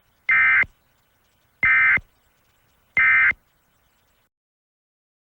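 Three short bursts of Emergency Alert System SAME data tones, the end-of-message code that closes an alert. Each burst lasts about a third of a second, and they come evenly spaced about 1.3 seconds apart.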